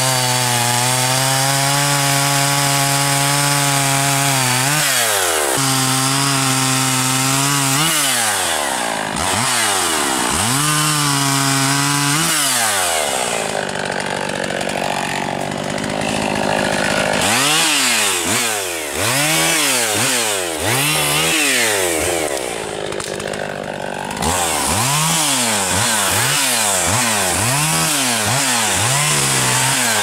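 Two-stroke chainsaw cutting through an aspen log, the engine held steady at full throttle through the cuts. In the second half it is revved up and let back down over and over, about once a second.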